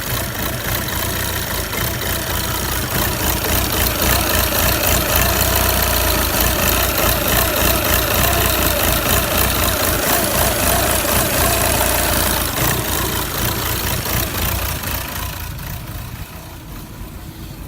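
Audi A4 2.0 TDI common-rail four-cylinder diesel (CAGA engine) idling roughly, its level and pitch wavering up and down in a surge. The uneven idle is caused by a failing fuel pressure regulator valve at the end of the common rail. The sound grows louder a few seconds in and falls away over the last few seconds.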